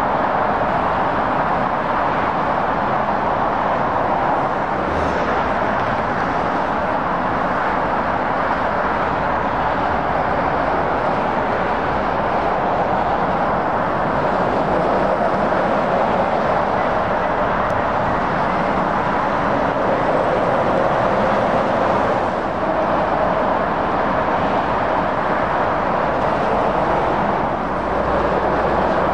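Steady roar of motorway traffic: tyres and engines of passing lorries and cars blending into one continuous sound.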